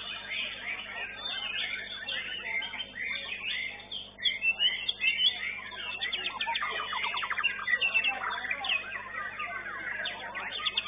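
White-rumped shamas (murai batu) singing a dense run of varied whistles and chatter. There are loud sharp phrases about four seconds in and a fast rattling trill a little past the middle.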